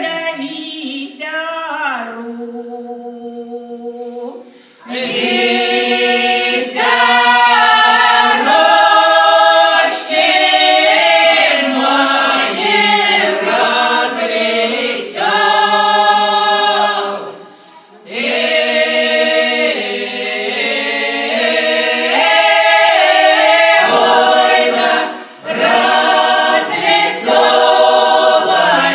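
Russian folk ensemble of women's and men's voices singing a folk song unaccompanied. A quieter lead line opens, the full choir comes in about five seconds in, and the singing breaks off briefly between phrases.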